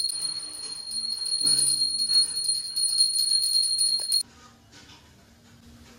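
Hand-held puja bell (ghanti) rung rapidly and continuously during aarti, a steady high ring renewed by quick strikes. It stops abruptly about four seconds in.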